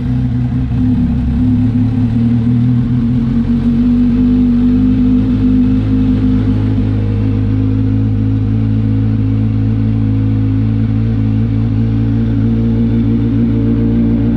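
Kawasaki Ninja 1000's inline-four engine idling steadily through a newly fitted SC Project titanium exhaust, just after starting.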